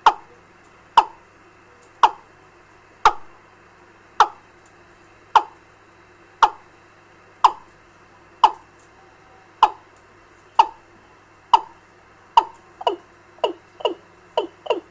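Recorded fowl lure call played through a bird-trapping amplifier's speaker. It is short, sharp notes, each dropping quickly in pitch, repeated about once a second and quickening to two or three a second near the end.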